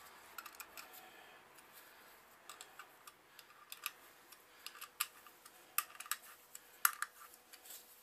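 Light, irregular metallic clicks and ticks from hand-handling the adjustable camshaft timing pulley and its bolts on an A-series engine, coming more often in the second half.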